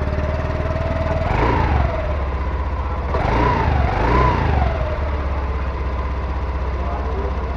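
Honda Dio scooter's single-cylinder fuel-injected engine idling steadily, heard close at the exhaust. The throttle is blipped once about a second in, then twice in quick succession a little past halfway, the revs rising and falling back to idle each time.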